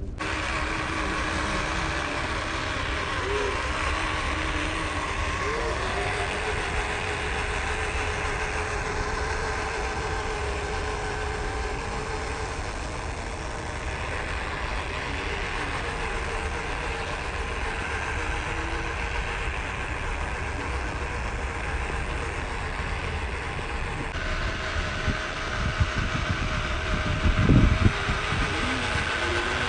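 WPL B16 RC 6x6 truck's electric motor and gearbox whining steadily as it drives under load, over a constant low rumble, with a few knocks near the end.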